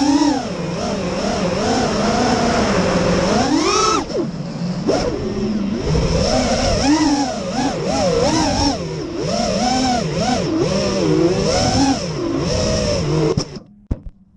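FPV racing quadcopter's brushless motors and propellers whining, pitch swinging up and down with the throttle through fast turns. The sound cuts out suddenly near the end as the quad comes down in the grass.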